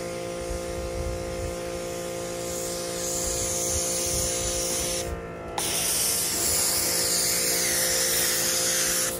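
Giraffe Tools electric pressure washer spraying water and foam onto a car, a steady hiss that stops briefly about five seconds in and then resumes, over background music with steady held notes.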